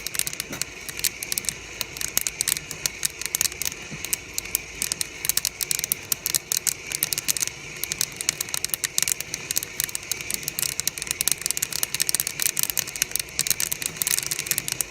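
Coffee beans cracking in a near-infrared roaster: many quick, irregular sharp pops over a steady background noise.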